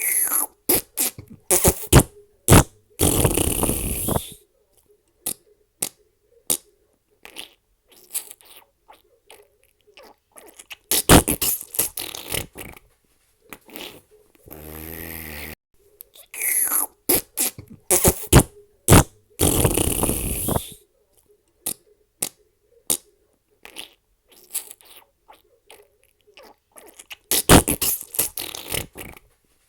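Fart sound effects: a run of short sputters and longer, drawn-out farts, with brief gaps between them.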